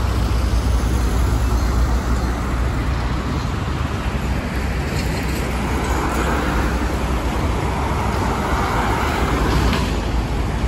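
Street traffic noise: road vehicles passing with a steady low rumble, and a vehicle driving close by that swells louder from about six seconds in.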